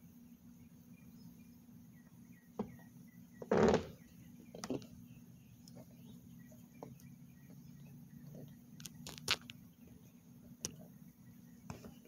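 Light handling clicks and knocks with one brief rustling scrape about three and a half seconds in, over a faint steady low hum.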